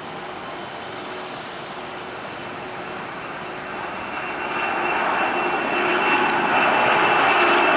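Boeing 767's twin jet engines at takeoff thrust as the airliner lifts off and climbs, a steady rushing noise that grows louder about halfway through, joined by a steady high fan whine.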